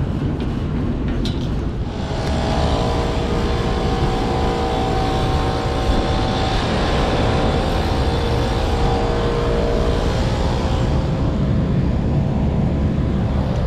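Rooftop air-conditioning unit running with its freshly cleaned condenser coil: a loud, steady rush of fan and machine noise, with a steady multi-tone hum setting in about two seconds in.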